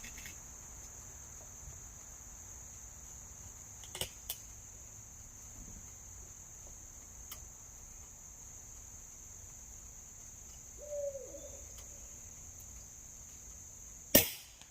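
Crickets chirping steadily, with a few faint clicks, and just before the end one sharp, loud crack of a spring-piston air rifle firing.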